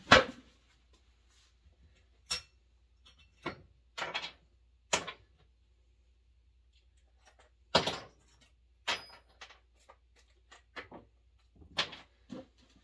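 About nine sharp knocks and clatters, irregularly spaced with quiet between, as a parts bin and other objects are picked up and set down, ready for a chainsaw teardown.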